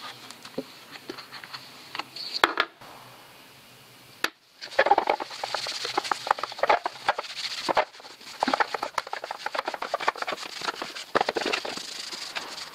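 Cloth rag rubbing plastic renovator into a hard black plastic bumper end cap: a few handling clicks and knocks at first, then from about five seconds in a quick, steady run of scrubbing strokes.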